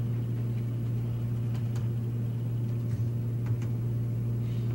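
Steady low electrical or fan hum in a lecture room, with a few faint clicks from about one and a half seconds in.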